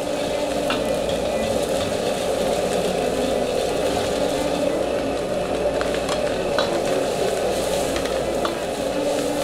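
Rice being stir-fried in a wok: a steady sizzle, with a handful of sharp clinks as the cooking utensil strikes the wok.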